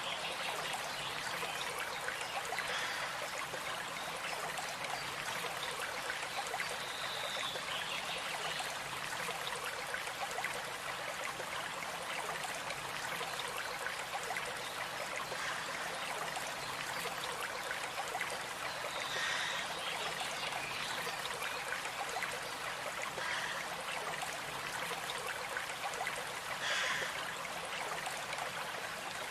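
Small stream running steadily, with a few brief high bird calls at intervals.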